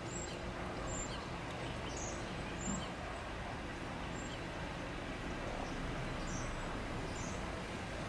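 Steady outdoor background hum, with a low drone from vehicles idling at the closed crossing and faint, short high bird chirps dotted through it about once a second.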